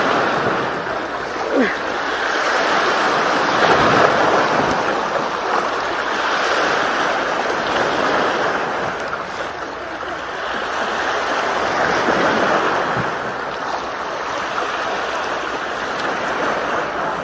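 Small sea waves washing against a rocky breakwater, the wash swelling and easing every few seconds, with wind on the microphone.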